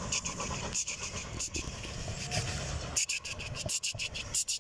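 Steam locomotive Flying Scotsman and its coaches pulling away into the distance, heard as a faint uneven rumble under wind noise, with intermittent high-pitched chirps that come thicker about three seconds in.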